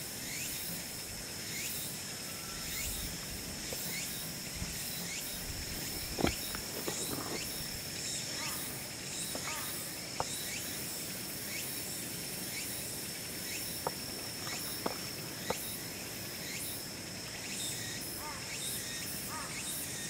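Steady high-pitched insect buzz with many short chirps over it, and a few sharp clicks, the loudest about six seconds in.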